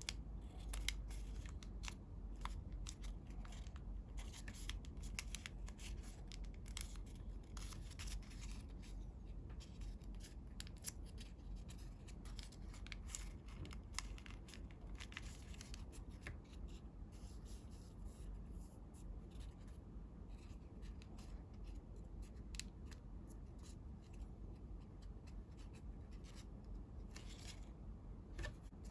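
Colored origami paper being folded and creased by hand: scattered crisp crackles and clicks of the paper, more frequent in the first half, over a low steady hum.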